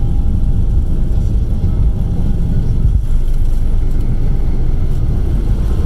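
Boeing 717 on its takeoff roll, heard from inside the cabin: the rear-mounted Rolls-Royce BR715 turbofans at takeoff thrust and the wheels on the runway make a loud, steady low rumble.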